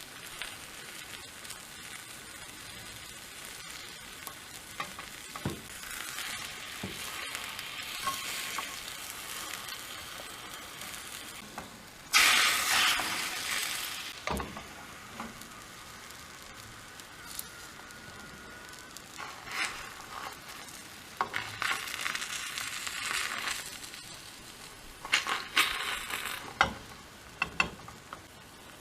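Beaten egg frying in a hot tamagoyaki pan: a steady sizzle that surges suddenly and loudly about twelve seconds in, swells again near the end, and is broken by scattered taps and scrapes of a utensil against the pan.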